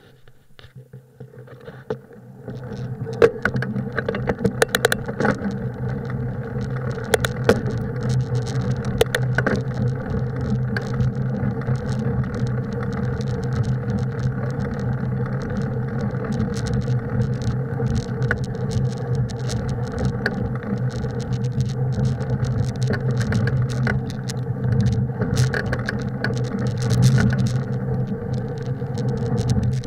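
Bicycle riding along a snow-covered trail: a steady rolling noise from the tyres and bike, with frequent rattles and clicks. It swells over the first few seconds as the bike gets up to speed, then holds steady.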